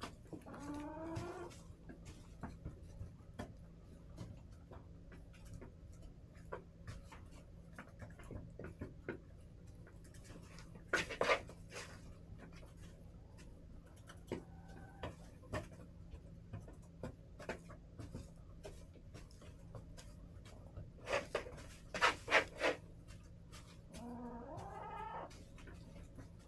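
Backyard hens calling: a drawn-out call rising in pitch comes near the start and again near the end. Short, loud, sharp sounds come in two clusters, about 11 seconds in and again around 21 to 23 seconds, with light tapping throughout.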